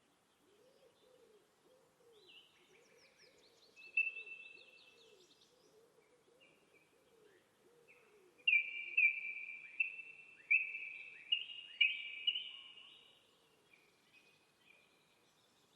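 Birds calling: a series of sharp, high calls about two a second, loudest in the second half, after a shorter burst of high calls about two seconds in. A fainter run of low, rising-and-falling calls repeats under the first half.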